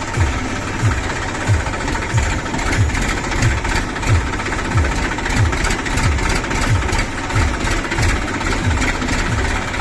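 Heavy diesel machine engine running, with a low thump repeating about every two-thirds of a second.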